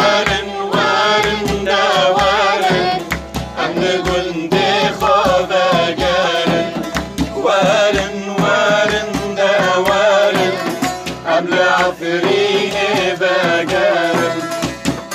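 Kurdish folk song: a sad, ornamented melody sung by a young woman over a steady hand-drum rhythm and instrumental backing.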